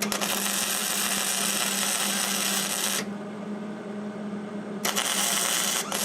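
A Hobart 115V MIG welder arc-welding a steel tractor rim: two bursts of steady arc crackle, the first about three seconds long, the second starting near the end, laid to seal a crack that lets air leak from the tyre. A steady low hum runs underneath.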